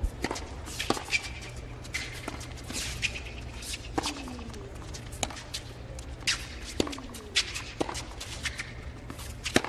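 Tennis serve and rally on a hard court: sharp racket strikes and ball bounces about every half second to a second, with short high squeaks of shoes on the court after several of them, over a low steady stadium background.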